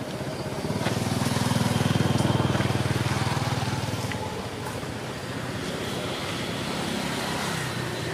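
A motor vehicle's engine going past, growing louder about a second in and easing off after about four seconds into a steadier, quieter engine hum.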